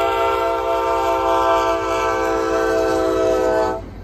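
Kansas City Southern locomotive's multi-chime air horn sounding one long, steady chord blast for the grade crossing, cutting off sharply near the end. The train's low rumble runs under it.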